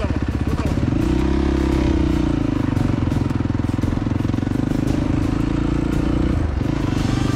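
Race quad's engine revving up and running steadily under throttle as it pulls away. Its pitch dips briefly near the end and then picks up again.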